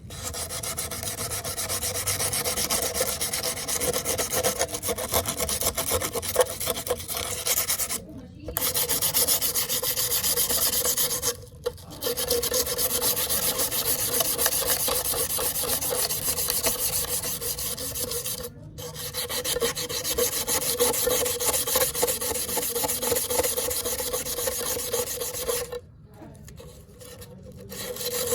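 Abrasive scraping against the metal of a rusty knife blade, as in rust removal, going on steadily. It stops briefly three times and for about two seconds near the end.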